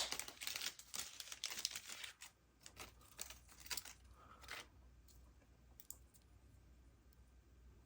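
Small parts being handled and sorted by hand: a sharp click, then a quick run of light clicks and rustling that stops after about four and a half seconds, leaving only a few faint ticks.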